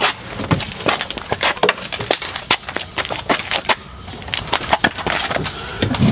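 Rapid, irregular cracking and snapping of breaking twigs and wood as a heavy, old walk-behind mower is hauled out.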